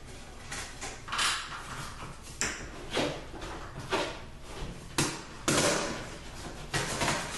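Sheet-metal vanity-light mounting plate knocking and scraping against the wall as it is shifted into place over its toggle bolts: a string of short clattering knocks and scrapes, roughly one a second.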